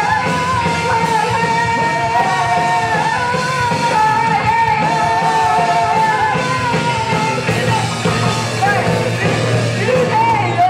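Rock band playing live, with singing over electric guitars and drums; a long held melody line wavers over the full band.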